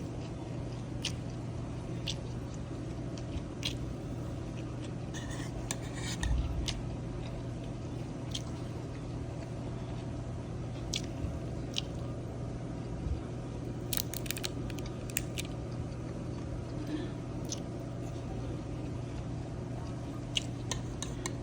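Eating from a takeout lunch box: utensils clicking and scraping against the container in scattered taps, with a cluster of clicks about two-thirds of the way through, over a steady low hum.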